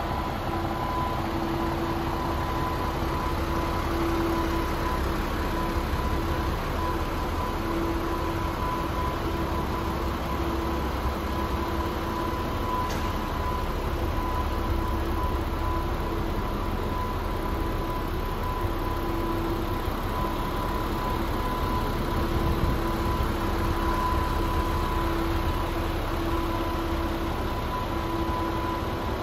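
DAF CF460's Paccar 460 bhp Euro 6 six-cylinder diesel engine idling steadily, a low rumble with a constant whine over it.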